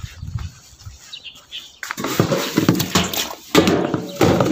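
Rustling and knocking handling noise, loudest in two stretches in the second half, as a bundle of freshly picked cassava leaves is set down at an outdoor sink; a low rumble of wind or handling on the phone microphone at first.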